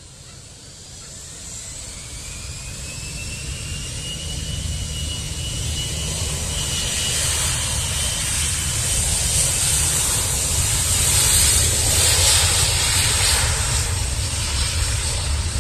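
Boeing 737 jet engines at take-off thrust as the airliner rolls down the runway. A whine rises in pitch over the first few seconds, and the engine noise grows steadily louder to a peak about twelve seconds in, then eases a little as the jet passes.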